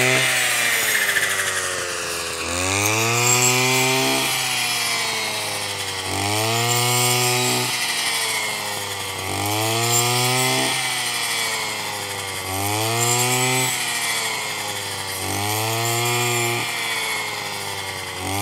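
Petrol brush cutter engine revving up and easing off about every three seconds as its blade sweeps through ripe rice stalks.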